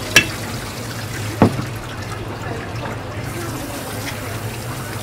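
Tap water running from a hose and splashing over sea snail meat being rinsed on a plastic cutting board, with two sharp knocks, one just after the start and one about a second and a half in.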